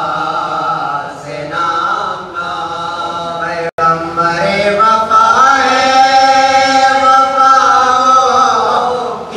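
A man's voice chanting a religious recitation in drawn-out melodic phrases, holding long notes through the second half. The sound cuts out for an instant a little before four seconds in.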